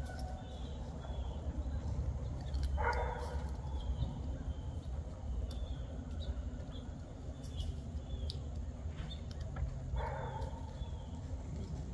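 Dog barking twice, about three seconds in and again near ten seconds.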